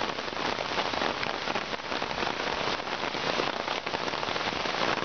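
Heavy downpour: a steady, dense hiss of rain with a fine patter of drops hitting close by.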